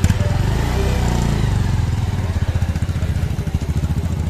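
Motorcycle engine running close by as the bike pulls away, with a steady low pulsing beat and a brief rise in pitch about a second in.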